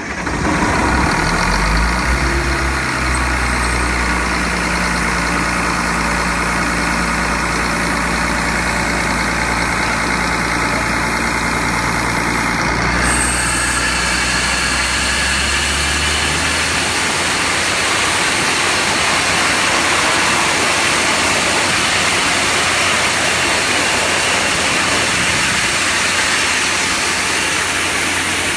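Industrial air compressor running loud and steady, its low machine hum under a hard rush of blowing air. About 13 seconds in the air rush turns brighter and louder, and a few seconds later the deepest hum drops away.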